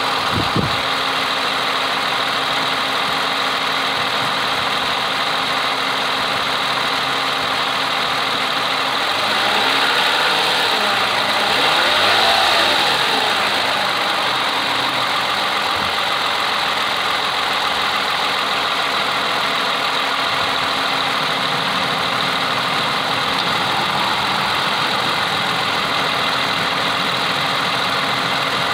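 2015 Toyota Highlander engine idling with the hood open, a steady running sound with a constant hum. Around the middle the sound swells and its tone briefly sweeps up and down.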